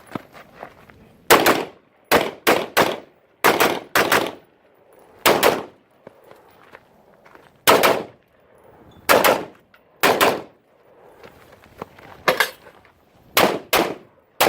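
Rifle shots fired at an uneven pace during a timed match string: about thirteen in all, some singly and some in quick pairs or triples. Each shot ends in a short echo.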